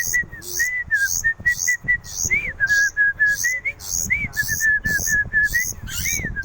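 Small songbird singing nonstop: a steady, rhythmic run of short, harsh high chirps about three a second, woven with clear whistled notes, some held level and some rising and falling.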